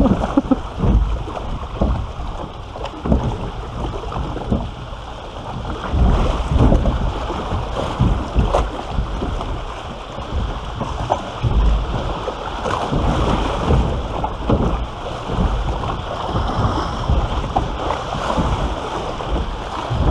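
Water rushing and sloshing through a log flume trough as the ride boat floats along, with wind buffeting the microphone in irregular low thumps.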